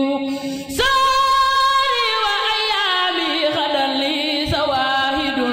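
A woman's solo voice chanting a khassida, a Senegalese Sufi devotional poem, in long wordless melismatic notes. It holds a low note, then about a second in leaps up to a high held note, which wavers and slowly falls back down toward the end.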